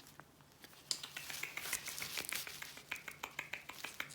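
Blue-and-gold macaw preening: its beak drawing through its feathers in a quick run of sharp little clicks and rustles, starting about a second in.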